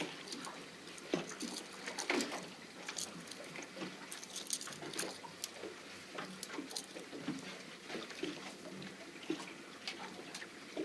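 Water slapping and splashing irregularly against a boat's hull, many small sharp slaps at uneven intervals.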